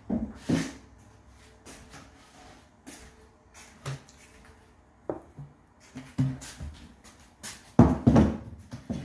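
Scattered knocks and bumps of things being moved about and handled, ending in a louder clatter about eight seconds in.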